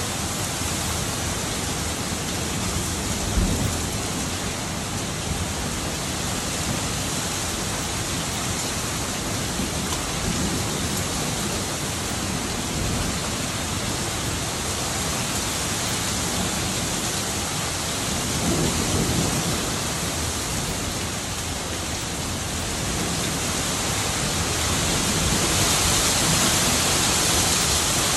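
Heavy downpour of a summer thunderstorm, a dense steady hiss of rain hammering the courtyard. There is a brief thump a few seconds in and a low rumble of thunder about two-thirds of the way through. The rain grows heavier and louder near the end.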